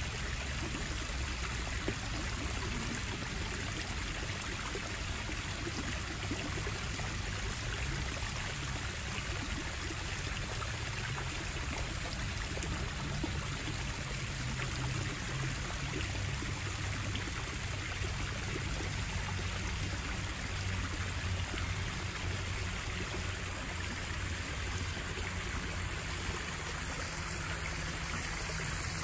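Backyard koi pond waterfall: water spilling over rocks into the pond, a steady trickling and splashing.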